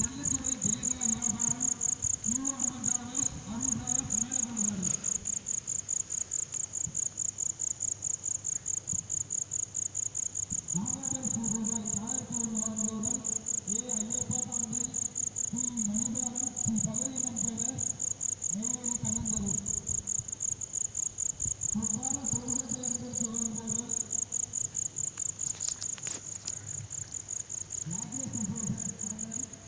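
Crickets chirping in a fast, steady, high-pitched pulse, with spells of low, repeated frog calls coming and going.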